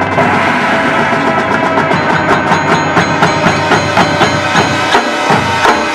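Marching band music: held chords over a steady percussion beat of about three to four strikes a second that comes in about two seconds in.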